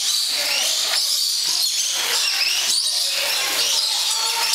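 A flock of dusky lories chattering and screeching over one another in many short, shrill calls, over a steady rush of running water.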